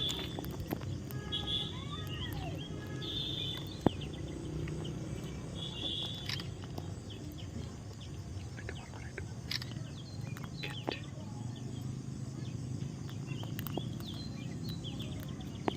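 Baby parrot giving short high chirps and squeaky gliding calls in the first few seconds and again about six seconds in, with scattered fainter chirps after, over a steady low background rumble. A single sharp click comes a little before four seconds in.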